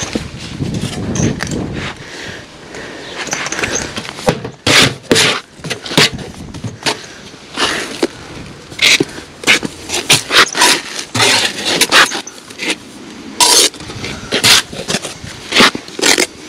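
Steel trowel working mortar on concrete blockwork: a rough continuous scraping for the first few seconds, then a string of short, sharp scrapes and knocks, one or two a second.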